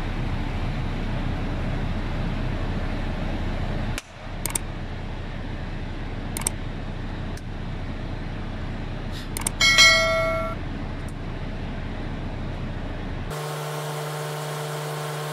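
Small clicks and snaps of a plastic electrical plug and wiring being fitted onto a solenoid water valve, over a steady low machine hum. About ten seconds in comes a short electronic beep, the loudest sound, and near the end a steady low hum takes over.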